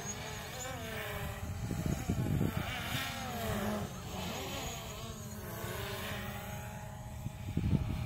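DJI Mavic Pro quadcopter in flight: its propellers whine, several pitched tones gliding up and down together as the motors change speed. A low rumble swells about two seconds in and again near the end.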